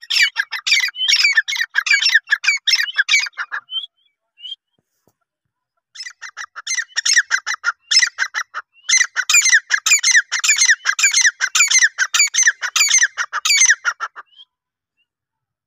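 Female grey francolin calling: fast runs of sharp, repeated notes, about four a second. The calling stops a little over three seconds in, starts again around six seconds, breaks off briefly near nine seconds and ends about a second and a half before the end.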